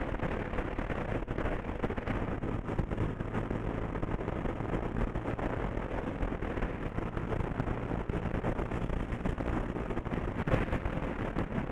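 Bajaj Pulsar 125's single-cylinder engine running steadily under way, with wind rushing over the microphone.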